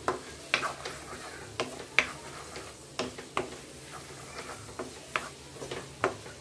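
A spatula stirring and scraping ivy gourd masala in a metal kadai, about a dozen short scrapes at uneven intervals, over a faint sizzle of the cooking oil.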